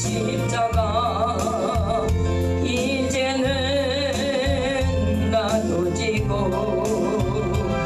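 A song with a solo voice holding long notes with a wide vibrato over a steady bass accompaniment.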